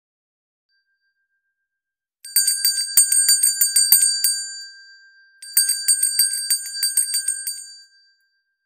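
Small handbell shaken in two bursts of rapid ringing, each about two seconds long, with a short pause between; the ringing fades at the end of each burst.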